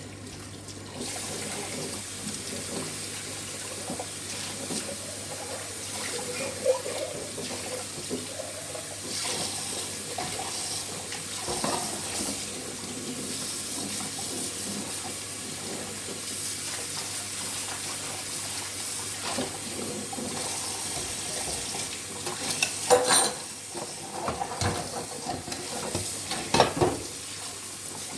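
Kitchen tap running steadily into a sink, turned on about a second in, with a few sharp clatters of dishes being handled near the end.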